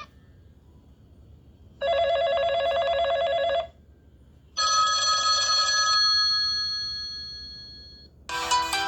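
BLU Advance 4.0 L phone ringtones through the phone's speaker: a rapid electronic telephone-bell trill lasting about two seconds, then a bell-like chime that rings out and fades over a few seconds, and another ringtone starting near the end.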